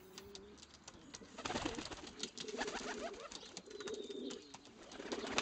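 Pigeons cooing in low, wavering calls that start about a second and a half in, pause, and return near the end, with scattered faint clicks.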